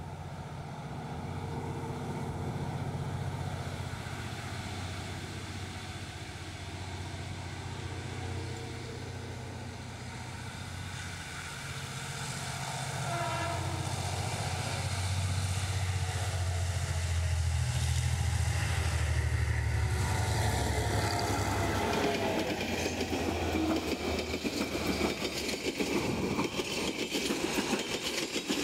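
GM G22CU diesel-electric locomotive approaching and passing, the low drone of its two-stroke diesel engine growing louder. In the last third the drone gives way to the rattling clatter of coach wheels over the rail joints as the passenger cars go by.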